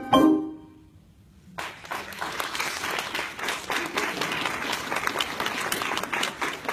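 A final loud handbell chord is struck at the very start and dies away within about half a second. After a second of quiet, the audience applauds from about a second and a half in.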